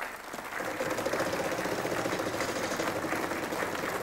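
Game-show prize wheel spinning, its metal pegs clicking rapidly against the pointer flapper in a continuous fast clatter.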